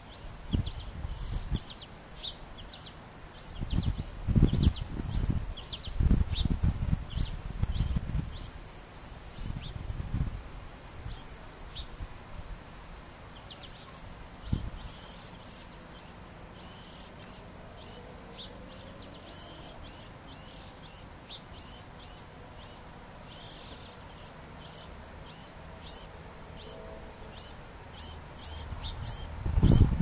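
Small birds, sparrows and a large fledgling, chirping: a long run of short, high chirps at roughly two a second. Low rumbles come and go over the first ten seconds, the loudest of them around four to eight seconds in.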